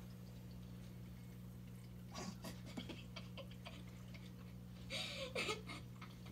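Quiet room with a steady low electrical hum. Faint scattered rustles and clicks come about two seconds in, and a slightly louder cluster follows near five seconds.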